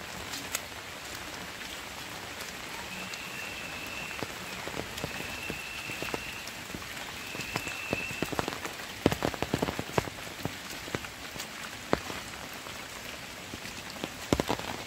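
Rain pattering steadily on leaves and wet ground, with scattered sharper taps and crackles that bunch together about nine seconds in and again near the end. A thin, high, steady call sounds three times in the first half.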